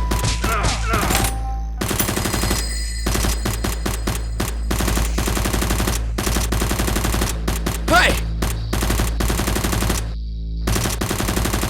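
Rapid bursts of automatic gunfire sound effects, shot after shot in quick runs for most of the clip, over background music with a steady low bass.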